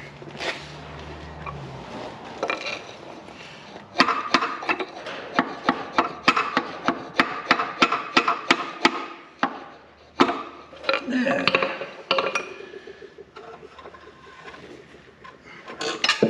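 Hand tools working on the metal of a Karrier K6 engine's bottom end: a run of sharp metallic clicks, about three or four a second, for several seconds in the middle, with scattered clinks after. It comes as the connecting-rod bolts are being worked loose.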